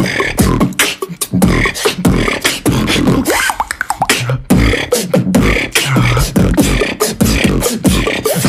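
Two beatboxers performing a drop together into one microphone: deep kick drums, sharp snares and fast clicks in a dense rhythm, with a short held bass note about six seconds in.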